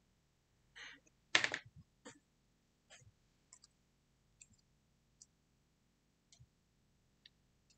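Faint scattered clicks and ticks of metal stacking rings and fingernails as the rings are slid onto a finger, with one louder click about a second and a half in.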